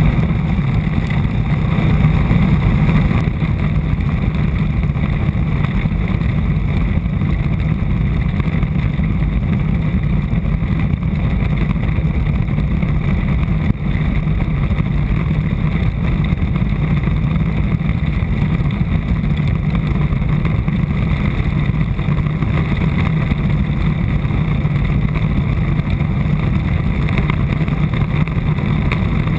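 Land yacht running fast over a hard, cracked dry lakebed, heard from a camera mounted on its hull: a steady low rumble of the wheels rolling on the playa and the hull vibrating, with a brief dip about halfway through.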